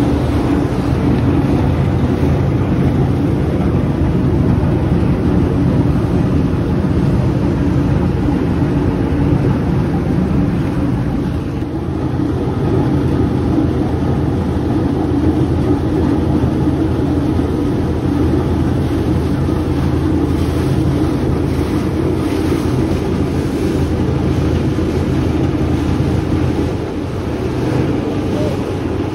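Vaporetto water bus under way: its engine running steadily, with water rushing past the hull and wind on the microphone.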